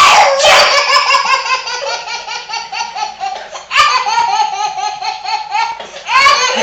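A young child laughing hard: long runs of rapid, high-pitched ha-ha pulses, catching breath about four seconds in and again near the end.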